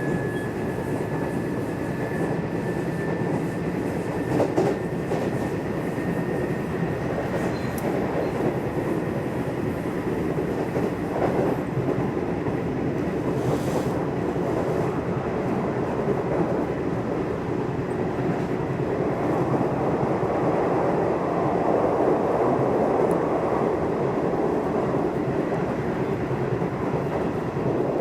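Nishitetsu electric commuter train running on the line, heard from inside the car: a steady rumble of wheels on rail with a few clicks from rail joints. A faint high whine slowly rises in pitch over the first few seconds and fades, and the running noise swells about twenty seconds in.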